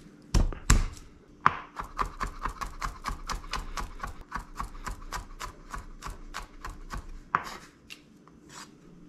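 Kitchen knife chopping garlic on a cutting board: a couple of heavy knocks, then a fast, even run of chopping strokes, about five a second, thinning to a few scattered strokes near the end.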